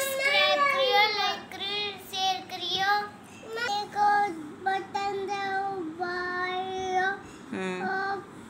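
A child singing in a high voice, holding several notes steady, with short pauses between phrases.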